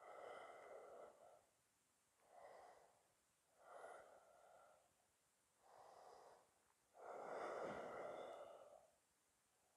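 A person's faint, slow breathing, heard about five times as soft breaths, the longest and loudest near the end, while holding a deep seated yoga forward bend.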